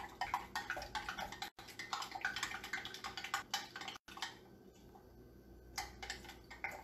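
A metal utensil clinking quickly and irregularly against a drinking glass while stirring cornstarch into water for a slurry. The clinking eases off about four seconds in, then a few more clinks come near the end.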